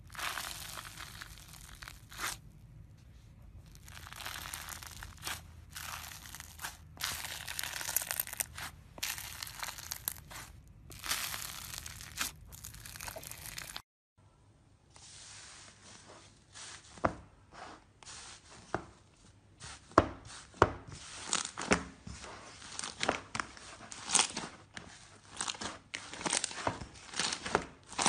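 Slime being worked by hand: stretches of crackling, tearing noise, then after a brief cut about halfway through, a run of sharp pops and clicks.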